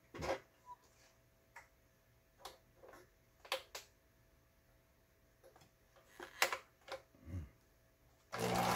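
Scattered light clicks as the stitch-selector dial of a Riccar BL3800 household sewing machine is turned to a new stitch. Near the end the machine starts running and sewing steadily.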